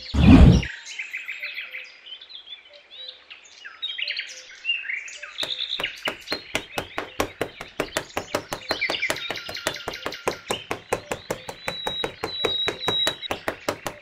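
Small hand trowel worked quickly over fine sand, making a fast, even run of scraping ticks that starts about five seconds in, over birds chirping. A single loud thump sounds at the very start.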